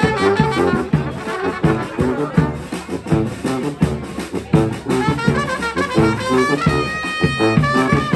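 A street band's horns (brass and saxophones) playing a lively tune live over a regular percussive beat, with high held horn notes coming in about five seconds in.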